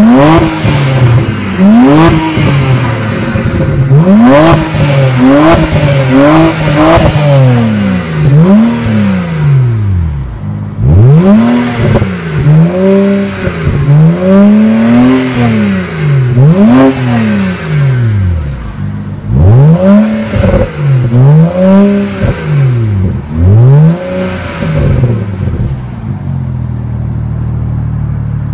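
BMW E92's N54 3.0-litre twin-turbo inline-six, fitted with a sport exhaust, revved hard while parked: a long series of quick free revs, each climbing and falling back, with sharp crackles among the early ones. It settles back to a steady idle near the end.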